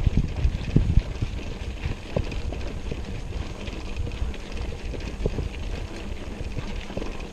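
Wind rumbling on the microphone and road noise from a moving bicycle, with scattered small knocks and rattles.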